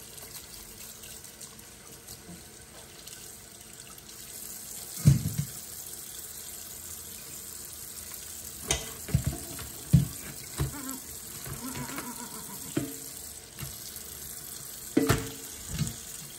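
Tap water running into a stainless steel sink over a pile of live blue crabs being rinsed, with a series of sudden loud knocks and clatters as the crabs are handled against the steel sink and a metal mesh strainer.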